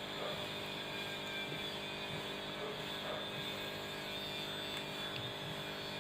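Steady machine hum with a fixed pitch that does not change.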